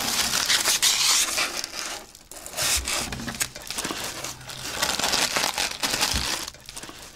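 Food wrapping crinkling and rustling as it is handled. The crackling is dense, with short breaks about two seconds in and again near the end.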